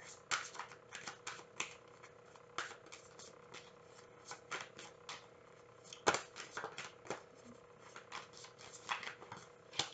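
A deck of tarot cards shuffled by hand: a run of irregular soft clicks and card-slapping, the sharpest a little past the middle.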